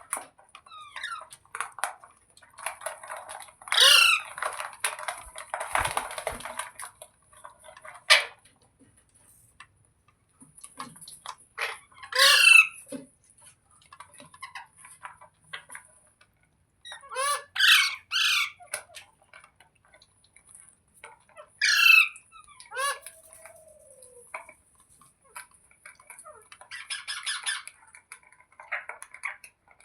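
Parrot giving loud, sharp screeching calls that sweep steeply down in pitch, several times, with softer chattering and squawking between them.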